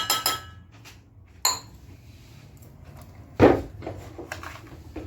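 Kitchen dishes and utensils clinking while besan (gram flour) is tipped into a mixing vessel: ringing clinks at the start and again about a second and a half in, then a louder knock about three and a half seconds in, with a few light taps.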